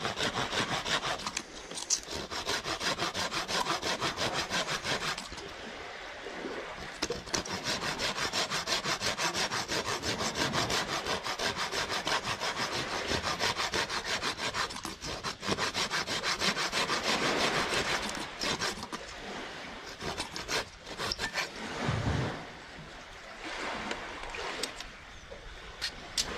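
Hand pruning saw with a curved toothed blade cutting through a dry stick of wood in rapid back-and-forth strokes, stopping briefly a few times before sawing on.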